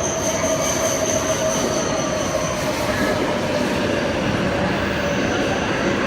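Coupled H5 and E6 series Shinkansen trains pulling into the platform: a steady rolling rumble with a high squeal from the wheels and brakes as they slow, the squeal fading out about two and a half seconds in.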